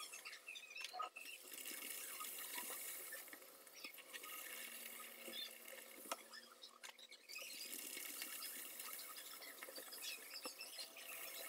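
Palak puris deep-frying in a pan of hot oil: a faint sizzling crackle that fades briefly twice, with a sharp clink of the slotted steel ladle about six seconds in.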